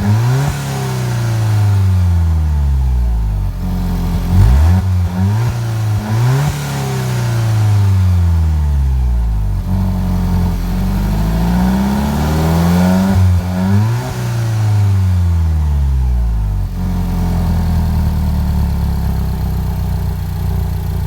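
Alfa Romeo 4C's 1.75-litre turbocharged inline-four engine revved in a series of blips, its pitch jumping up and sinking slowly back each time. It settles to a steady idle for the last few seconds.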